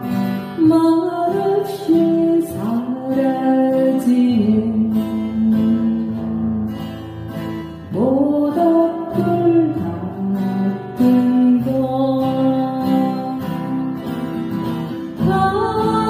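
A woman singing a Korean folk song, accompanying herself on a strummed acoustic guitar.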